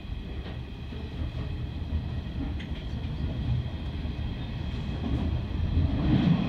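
Hanshin Main Line electric train running at speed, heard from inside the front car: a steady rumble of wheels on rail with faint ticks. It grows louder near the end as the train runs onto a steel girder bridge.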